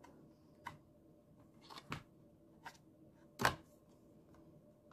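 Pages of a thick cardboard baby book being handled and turned: a few short taps and rustles, the loudest about three and a half seconds in.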